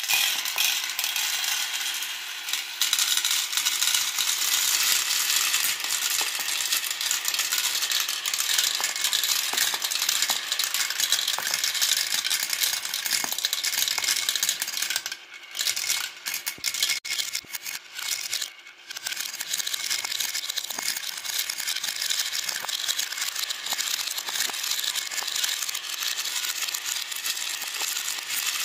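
Dozens of glass marbles rolling and clattering together through a plastic marble run's funnels and tracks, a dense stream of small clicks that thins to scattered clicks for a few seconds about halfway through.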